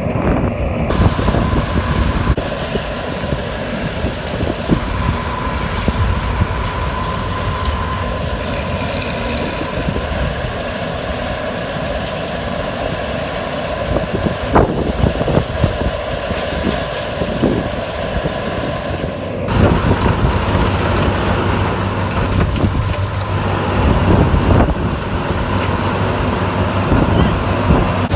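Heavy farm machinery engines running at a corn harvest, a steady mechanical din. About 19 seconds in the sound changes abruptly to a steadier low engine hum.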